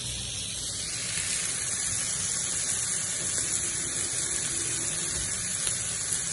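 Kitchen tap running steadily, water splashing as chestnut mushrooms are rinsed under it.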